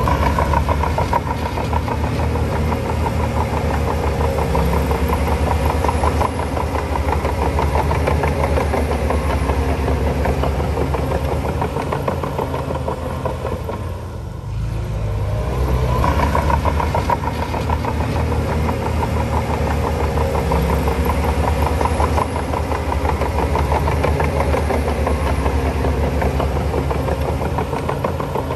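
Bulldozer's diesel engine working hard, easing off briefly about halfway through and then picking up again.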